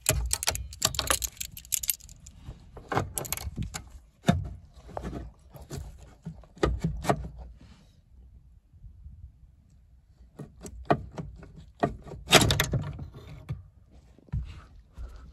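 Metal clicks, knocks and clinks of a Ford Escort Mk3's pedal box as the pedal pivot bar is pulled out and the clutch pedal parts work loose. They come in irregular clusters, with a quieter pause about midway and the loudest clatter near the end.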